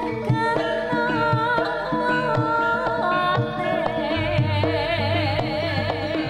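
Background music: a melody that wavers in pitch over regular drum beats.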